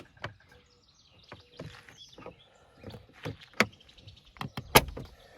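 Small plastic and metal parts of a replacement interior door handle clicking and knocking as the handle and its spring are worked into place by hand: a run of irregular clicks and taps, with the loudest knock a little before the end.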